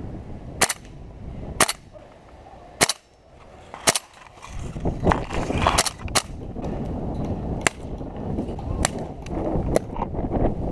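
Airsoft gas blowback rifle firing single shots: about ten sharp cracks, irregularly spaced roughly a second apart, over a steady low rumble of wind.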